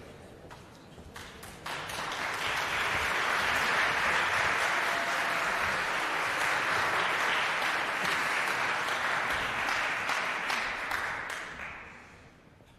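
Audience applauding in a concert hall: it starts about two seconds in, holds steady, and dies away near the end.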